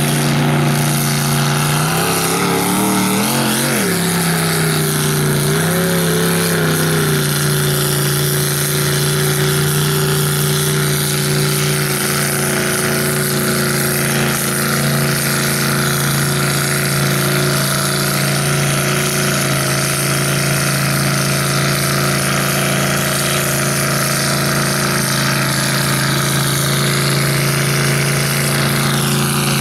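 Lifted Chevrolet square-body mega truck's engine running hard as it drives through a mud pit, its pitch rising and falling for the first several seconds, then held steady.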